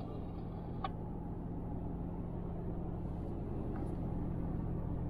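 Cabin noise of a Toyota Land Cruiser 200 at highway speed: a steady engine drone over road rumble, slowly getting a little louder.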